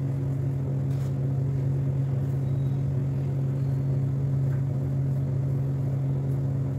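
Steady low hum of a running motor or fan, even in pitch and level throughout.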